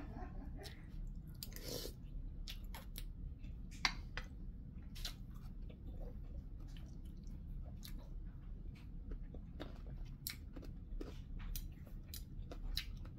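A person chewing food close to the microphone, with irregular wet mouth clicks and smacks throughout.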